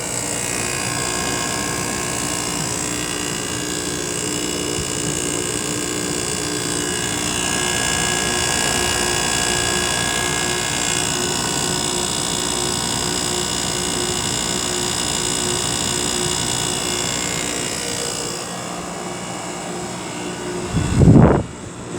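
A 1996 Fedders 6,000 BTU window air conditioner running with its compressor and fan on. It makes a steady, loud hum with several steady tones under a rush of air. A short low thump comes near the end.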